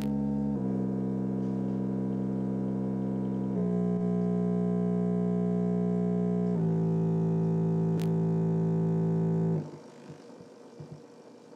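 Logitech computer-speaker subwoofer playing a series of low test tones, each held for about three seconds before stepping to a new pitch, rich in overtones. About two seconds before the end the tone stops and it goes quiet.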